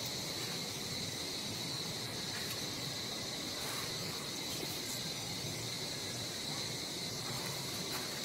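Steady chorus of insects, one even high-pitched buzz with no pauses.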